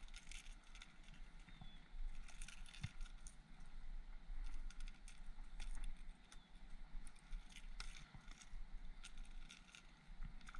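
Scattered small clicks and a light metallic rattle as a lure and its hook are worked out of a hand-held striped bass's mouth.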